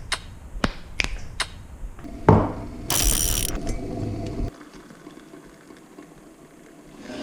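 A run of sharp mechanical clicks, then a loud knock and a short burst of hiss, over a steady sound that cuts off suddenly about four and a half seconds in.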